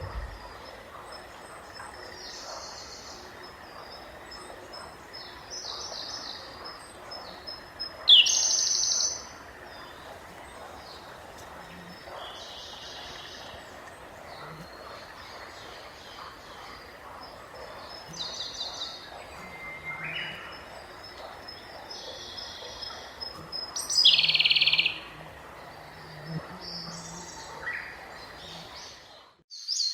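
Songbirds chirping in short phrases every few seconds, two of them louder about 8 and 24 seconds in, over the steady rush of a babbling stream. The sound cuts out abruptly near the end.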